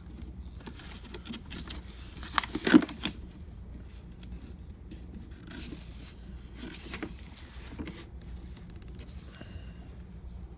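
Scraping, scratching and rustling as the packaging on a boxed tool set is picked and cut at to free what holds it shut, with a louder cluster of scrapes about two and a half seconds in.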